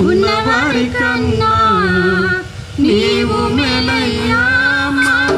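A man and a woman singing a Telugu Christian song into microphones through a PA, in two phrases of held, wavering notes with a short break about two and a half seconds in.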